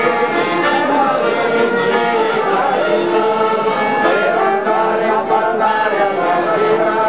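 A group of men singing a folk song together in several voices, without a break.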